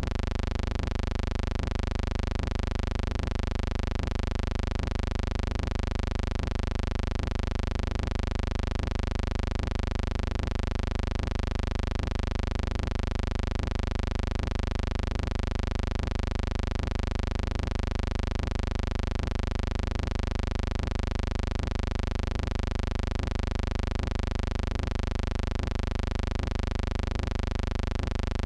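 A steady, unchanging buzzing hum with many even overtones, with faint regular ticks in it.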